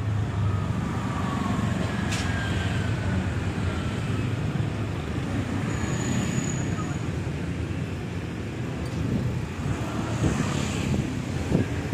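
Steady low rumble of road traffic, with a short faint high tone about six seconds in.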